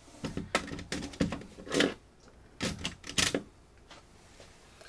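Sharp clicks and clatters, about six spread over a few seconds: a screwdriver being picked out from among other hard objects and handled, to turn the side-panel lock of a tower server.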